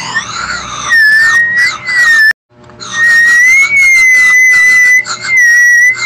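A loud, high, steady whistling tone that wavers slightly in pitch, cutting out abruptly for a moment about two and a half seconds in before carrying on.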